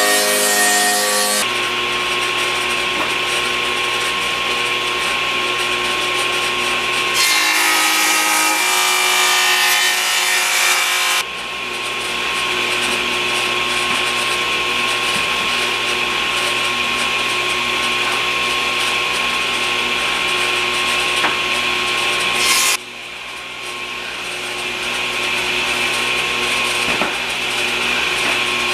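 Ridgid TS3650 table saw running with a steady motor hum, its blade cutting wooden boards in successive passes to form shiplap and scalloped profiles. The cutting sound changes abruptly several times, from one pass to the next.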